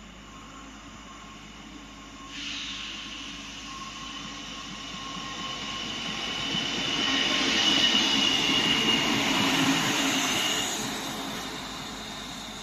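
PESA SA135 diesel railcar passing through the station. It comes in suddenly about two seconds in and grows louder, with a rumble and a high squealing tone, and is loudest around eight seconds in. It fades near the end.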